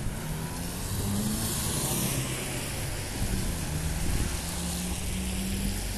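A car driving past on a city street, its tyre and engine noise swelling to a peak about two seconds in and then fading, over a low rumble of traffic.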